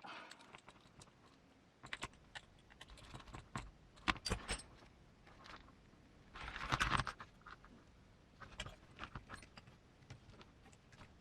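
Light clicks and taps of small metal parts and a hand tool being handled while an RC motor and its pinion are set for gear mesh, with a short rustling scrape about seven seconds in.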